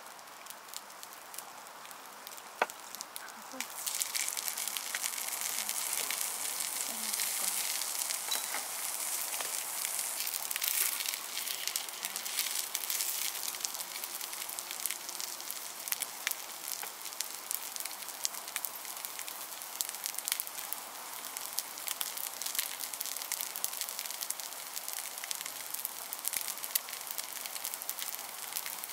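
Rice balls frying in oil in a small pan, sizzling and crackling. The sizzle jumps up loud about four seconds in, just after a single sharp click, probably chopsticks on the pan.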